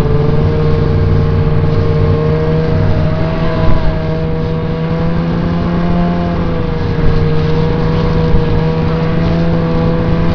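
Snowmobile engine running steadily at towing speed, heard from the seat, its pitch wavering slightly with small dips and rises.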